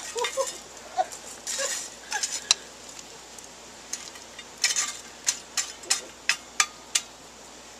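Charcoal briquettes being scraped and clinked with metal tools around a camp Dutch oven, with a run of sharp clinks in the second half.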